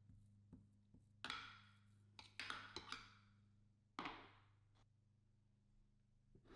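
A metal spoon pressing and smoothing a sticky date-and-almond mixture in a glass baking dish: a few soft scraping strokes and taps in the first four seconds, over a faint steady hum.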